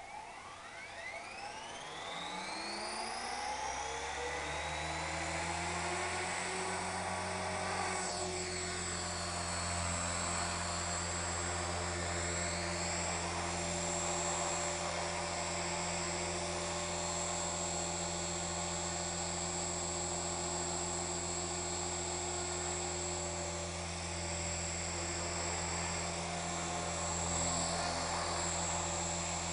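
Electric 450-size RC helicopter (Curtis Youngblood Rave 450) spooling up: motor and rotor whine rising in pitch over the first few seconds, then running at a steady head speed with a rotor hum and a high whine. There is a brief dip and recovery in pitch about eight seconds in.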